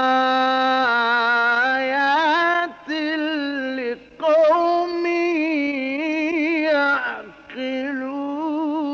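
A man reciting the Quran in the melodic mujawwad style, drawing out long held notes with ornamented turns and wavering pitch. He stops for a breath three times, about 2.7, 4 and 7.3 seconds in. The sound is an old 1958 reel-tape recording.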